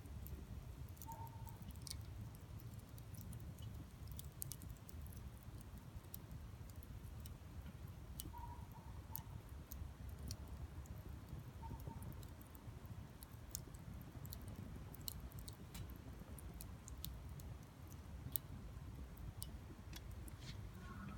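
Wood fire crackling in a small folding grill, with irregular sharp pops and clicks over a steady low rumble.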